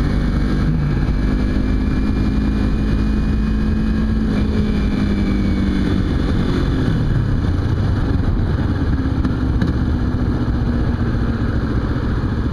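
Kawasaki Ninja 250's parallel-twin engine running while the motorcycle is ridden on the road, with wind rushing over the microphone. The engine note holds mostly steady and dips once about seven seconds in.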